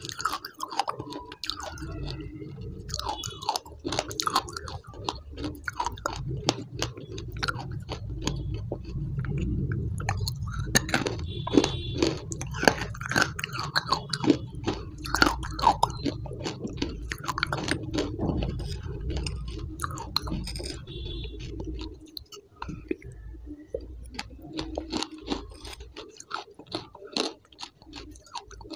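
Close-up eating sounds: chewing and crunching in the mouth, with many sharp wet clicks.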